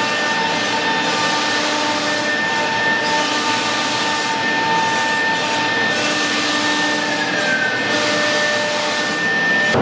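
CNC panel router at work on a wooden panel: a steady, loud machine noise of spindle whine in a few pitches over the hiss of dust extraction. About seven seconds in, one of the whining tones slides down in pitch.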